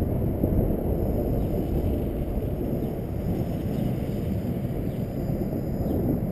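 Wind buffeting the microphone: a loud, uneven low rumble throughout, with a few faint short high chirps above it.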